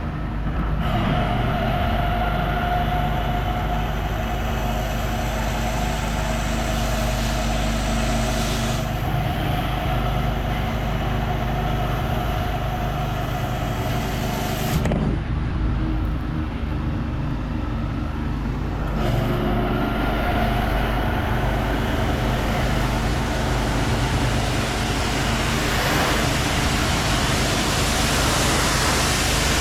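Pressure washer running steadily, its engine drone under the hiss of the spray from the soap tip. The spray hiss cuts out for a few seconds midway, then comes back.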